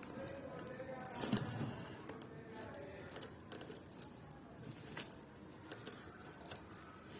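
Light handling noises: rustling and crinkling with scattered soft clicks and knocks, the loudest about a second in.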